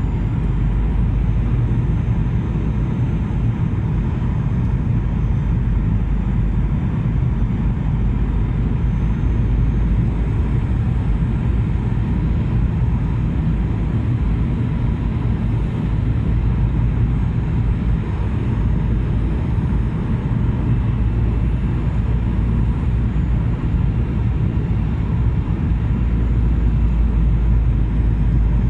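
Steady cabin noise inside a Skymark Boeing 737-800 in flight: the jet engines and the airflow over the fuselage, a constant low rumble.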